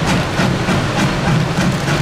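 Narrow-gauge steam locomotive working, its exhaust chuffing in an even rhythm of about four beats a second.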